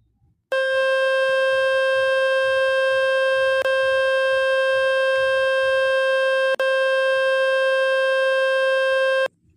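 Speaker-cleaning tone from the Fix My Speaker website playing on a Realme P1 5G phone, meant to shake dust and water out of the speaker. It is one loud steady tone that starts about half a second in, drops out twice for an instant, and cuts off suddenly near the end.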